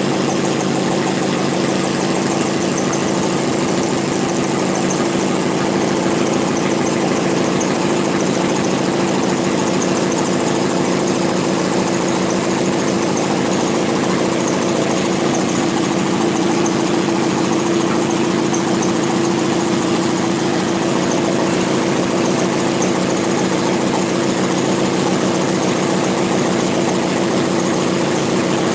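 Alcohol-fired four-cylinder vacuum (flame-licker) model engine with camshaft-driven valves running at a steady speed, a fast, even ticking over a steady hum.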